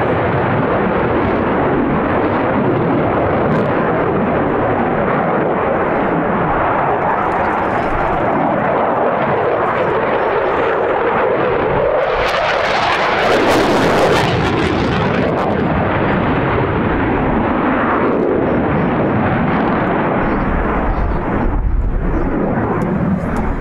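Dassault Rafale's twin Snecma M88 turbofans, a continuous loud jet noise that grows brighter and louder between about 12 and 15 seconds in as the fighter passes close, then eases back.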